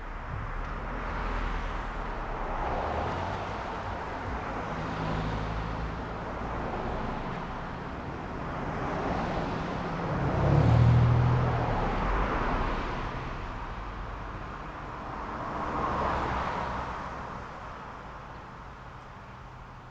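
Road traffic: several cars pass one after another, their tyre and engine noise swelling and fading. The loudest, about halfway through, is a pickup truck with a low engine hum.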